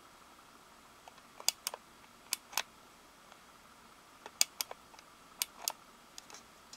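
Sharp hard-plastic clicks from a plastic star-projector shell being handled and turned, coming as four pairs of quick double clicks at uneven gaps, with a few fainter ticks between.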